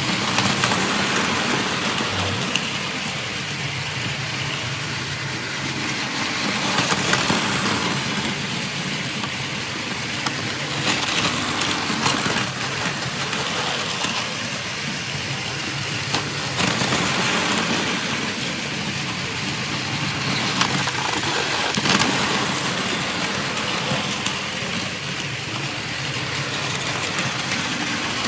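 Battery-powered Plarail toy Shinkansen trains running on plastic track: a steady rattling hum of small motors and gears with light clicking over the track joints. It swells and fades every few seconds as trains pass close by.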